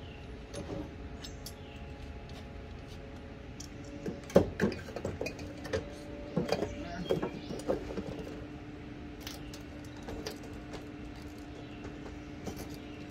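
Metal clanks and knocks of a cast-iron bench vise being handled and lifted off a steel mounting bar, with a cluster of sharp knocks in the middle and a few lighter clinks later, over a steady low hum.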